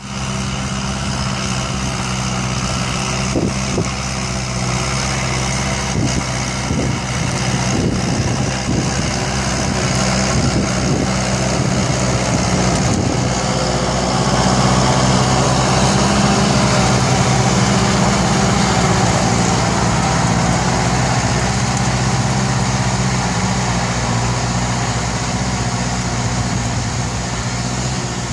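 Kubota L4708 tractor's four-cylinder diesel engine running steadily under load while pulling a disc plow through dry soil, with scattered knocks and clanks in the first half.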